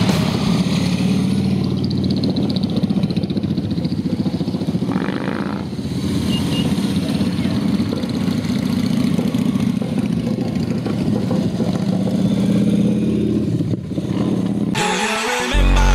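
Motorcycle engines running steadily as a group of bikes rides past, a low, pulsing exhaust note. The engine sound cuts off suddenly about a second before the end.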